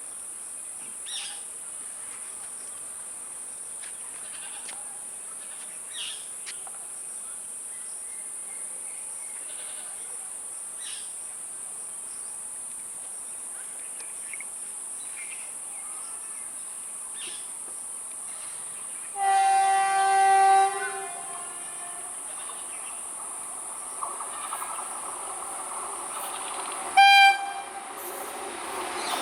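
An approaching Indian Railways train sounding its horn twice: one blast of about a second and a half, then a short one near the end, while the train's running noise grows louder. A steady high insect drone with faint chirps runs underneath.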